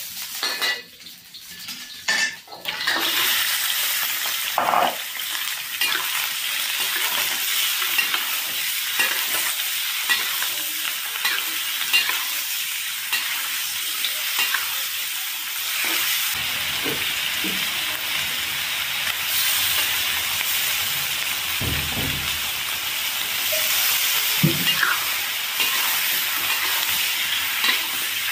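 Chopped duck stir-fried in a wok with garlic and ginger: the hot oil sizzles loudly from about three seconds in, once the meat is in the pan, with a metal spatula scraping and clacking against the wok as the meat is tossed.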